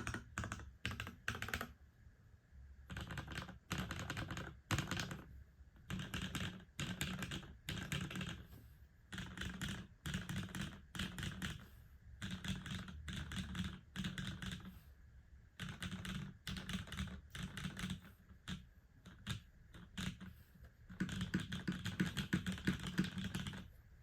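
Typing on a Bisoromi RS TKL mechanical keyboard: lubed Cherry MX Black Hailgun linear switches in an aluminium plate, with GMK keycaps. Keystrokes come in quick bursts with short pauses, and the typing is densest near the end.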